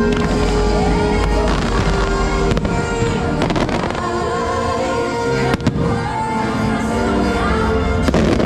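Fireworks bursting over loud show music. Sharp bangs come about two and a half to three and a half seconds in, again at five and a half seconds, and once near the end.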